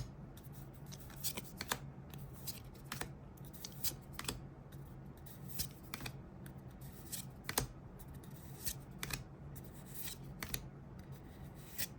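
Trading cards being handled and flipped through one by one: short, irregular card snaps and slides, a few every second, over a steady low hum.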